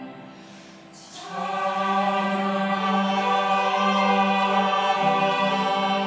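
Mixed church choir singing a hymn in held chords. About a second in, after a softer fading chord, the voices come back in loudly on a new phrase with a sharp hissing consonant, and sustain a full chord.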